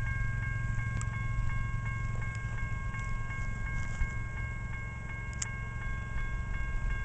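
Railroad grade-crossing warning bell ringing steadily at about three strikes a second, its ring holding on a few high tones, over a steady low rumble.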